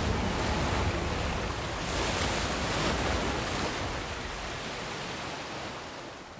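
Crashing waves: a rushing surf noise that swells about two seconds in and fades away toward the end.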